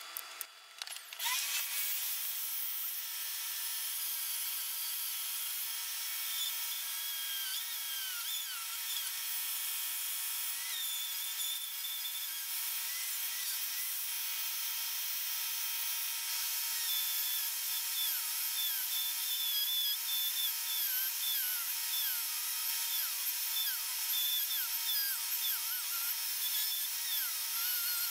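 Handheld rotary tool with a diamond cutoff wheel starting about a second in and cutting into the wooden frame: a steady high whine that dips briefly in pitch again and again as the wheel bites into the wood.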